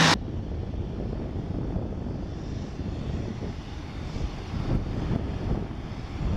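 Aircraft engine noise: a steady low rumble with no clear pitch.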